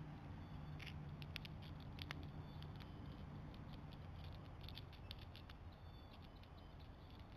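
Faint, irregular sharp clicks and crunches of a white-tailed deer's hooves stepping on snow-covered ice, thinning out in the second half, with a few faint high chirps.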